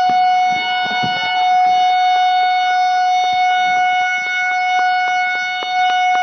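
Vande Bharat Express train horn blowing one long, steady note as the train is flagged off on its first run.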